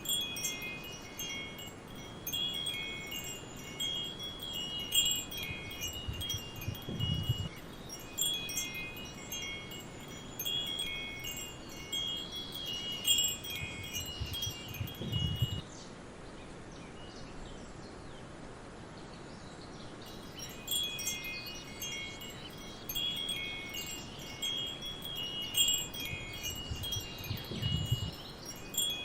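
Wind chimes ringing in irregular clusters of clear high tones, pausing for a few seconds around the middle, over a steady soft forest-ambience hiss. Three brief low rumbles come through at intervals.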